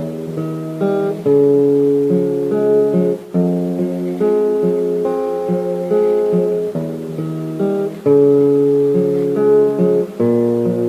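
Acoustic guitar strumming chords in an instrumental break of a song, the chord changing about every second or two.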